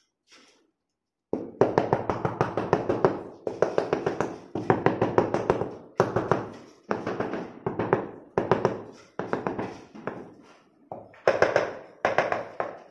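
Wooden-handled mallet tapping rapidly on a large ceramic floor tile to bed it into the mortar. The quick knocks come in runs of about a second with short pauses between, starting about a second in.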